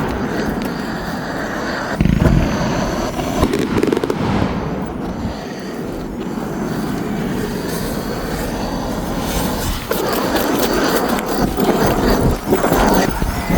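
Fireworks display going off: a dense, continuous noise with a few sharper bangs, the loudest about two seconds in and again near the end.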